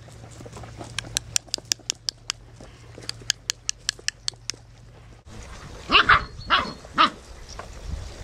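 A run of sharp clicks and ticks, then four-week-old puppies yapping about four times in quick succession, about three-quarters of the way in.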